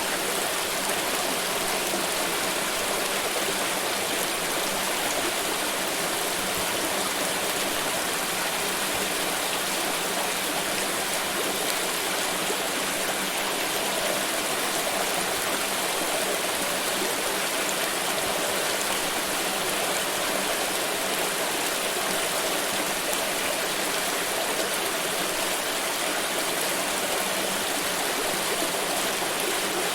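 A stream of water flowing and splashing steadily, a constant rushing with no let-up.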